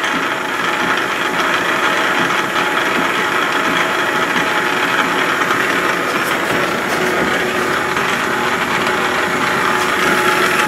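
Metal lathe running under power from an old electric motor, with the carriage power feed engaged and the carriage moving slowly: a steady mechanical running noise from the gearing and feed mechanism, with a fine, rapid, even clatter.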